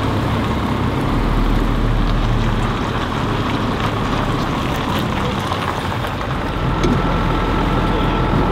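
Scania coach bus's diesel engine running at low speed as the bus pulls in and comes to a stop, a steady low rumble.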